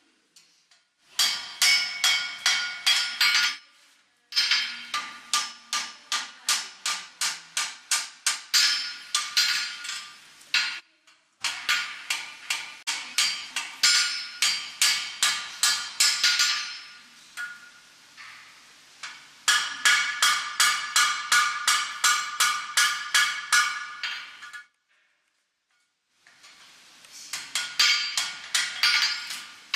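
Blacksmith's hammer striking iron on an anvil in quick runs of about three blows a second, each blow ringing, with short pauses between the runs.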